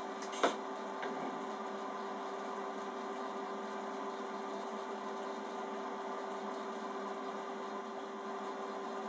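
Steady hum with one constant low tone from a wire-leader twisting machine standing idle, after a single short click about half a second in.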